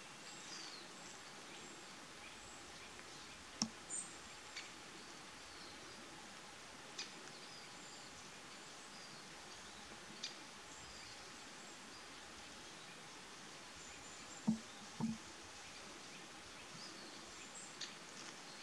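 Quiet woodland ambience: a steady hiss with scattered short, high bird chirps, and a few soft knocks, the loudest two close together about three-quarters of the way through.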